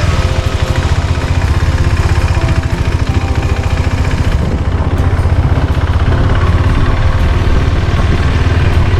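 Motorcycle engine running steadily, a fast even pulse with most of its weight low down.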